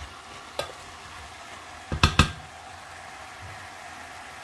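Chicken and vegetables sizzling quietly in a pot, cooking in their own juices with no water added. A light click about half a second in and two sharp knocks about two seconds in.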